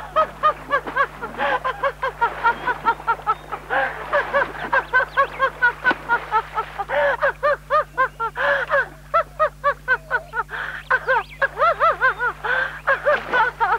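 A woman laughing hard and without pause, in a long run of high-pitched 'ha' bursts about four a second.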